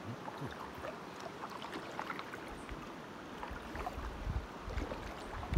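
Water lapping, dripping and plinking in small splashes around an inflatable packraft drifting on a calm river pool. Low rumbles of wind on the microphone come in during the second half.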